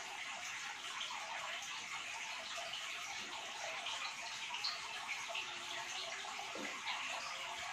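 Steady rushing hiss, like running water, with no distinct events.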